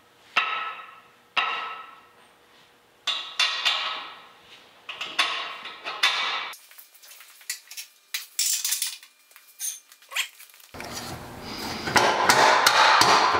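Steel four-link suspension bars knocking against the chassis brackets as they are fitted: a run of sharp metallic clanks, each with a short ring, over the first six seconds, then lighter clicks and rattles. A steady rushing noise comes in near the end.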